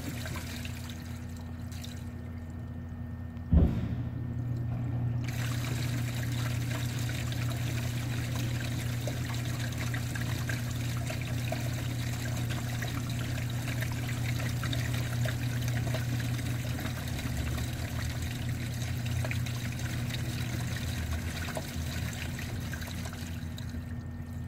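Water trickling through a PVC drain pipe, steady and filling out about five seconds in, then thinning just before the end, over a low steady hum. A single sharp knock about three and a half seconds in.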